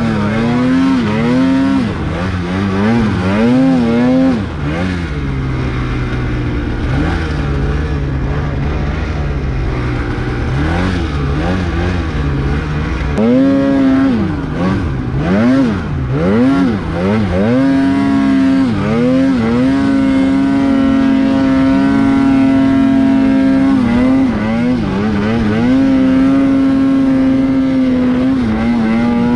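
Snowmobile engine revving up and down repeatedly as the sled ploughs through deep powder. It drops lower in the middle, climbs again a little after halfway, and is held at high revs through the second half with a couple of brief dips.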